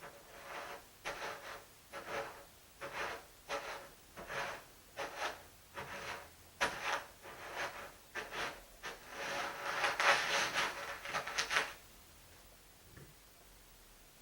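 Repeated scraping strokes, about one to two a second, crowding together and growing louder toward the end before stopping abruptly about twelve seconds in.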